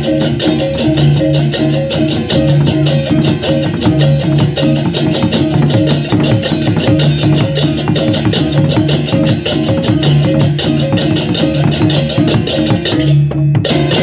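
Balinese baleganjur gamelan playing: many pairs of cengceng kopyak hand cymbals clash in a rapid, driving pattern over kendang drums and repeating gong tones. Near the end the cymbals break off for a moment, then come back with one more crash.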